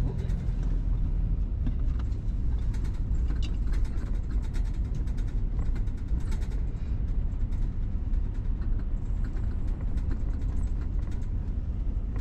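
Car driving on the road: a steady low rumble of engine and tyre noise, with scattered faint ticks.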